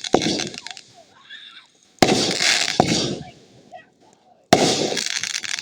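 Fireworks going off: three loud bangs, one at the start, one about two seconds in and one near four and a half seconds, each trailing off in about a second of crackling, with an extra sharp crack just before the three-second mark.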